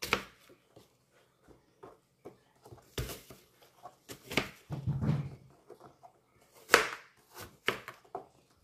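Kitchen knife cutting through crisp green apple and knocking on the cutting board: about half a dozen separate crunching cuts at irregular intervals.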